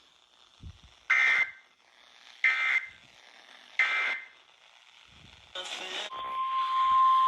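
NOAA Weather Radio receiver sounding an Emergency Alert System header: three short bursts of warbling SAME data about a second and a half apart, a brief hiss, then the steady single-pitch weather-radio alarm tone beginning about six seconds in. It is the alert header that announces a new tornado warning.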